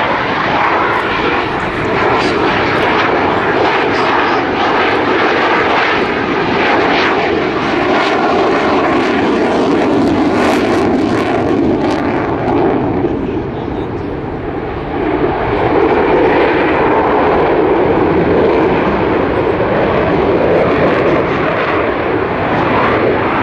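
RNLAF F-16 fighter's Pratt & Whitney F100 turbofan running under display power as the jet manoeuvres overhead, a continuous loud jet roar. It fades briefly a little past the middle, then swells louder again as the jet comes round.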